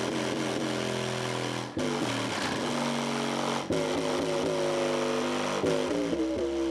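Large car-audio subwoofers, driven from an 80 Hz low-pass crossover, playing loud bass notes. Each note holds for a second or two and then steps to a new pitch, twice in the first four seconds and again near the end.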